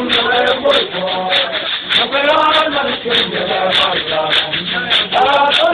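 A crowd of dancers singing and chanting together, with sharp percussive hits about three times a second at an uneven beat.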